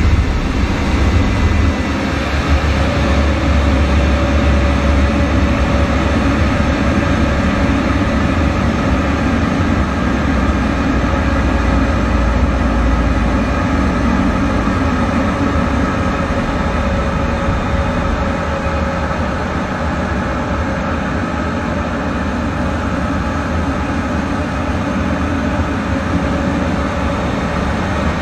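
Military jet in flight heard from inside the cockpit: loud, steady engine and airflow noise with a faint steady whine, easing slightly about halfway through.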